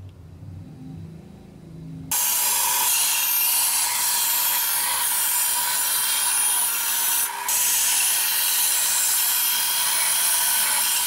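Benchtop band saw running and cutting through a wooden board, a loud steady sawing noise that starts abruptly about two seconds in, with a brief dip about seven seconds in.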